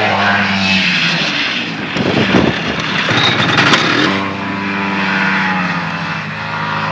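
Snowmobile engines running at a steady pitch, broken for about two seconds in the middle by a loud rushing, crackling noise as a sled passes close and throws up snow.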